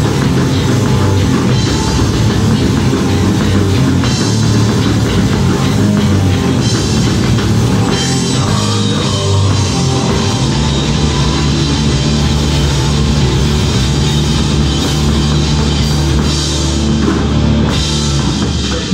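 Live rock band playing loud: electric guitar, bass guitar and drum kit, with a singer on microphone.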